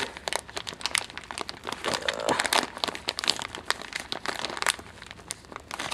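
Clear plastic bag of an Australian combat ration pack (CR1M) crinkling as hands grip and turn it over, a dense run of irregular crackles.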